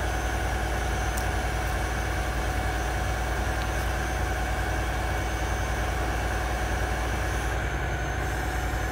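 Diesel engine of a boom truck crane running at a steady speed, with a constant whine above the low engine note.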